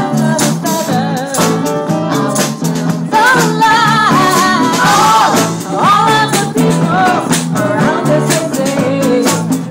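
Live band playing through a PA: several women singing into microphones over keyboard, a drum kit and a steady bass line.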